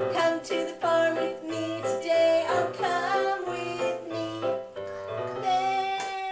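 Children's tune played on an electronic keyboard or toy, with a bouncing bass line and a melody in steady steps.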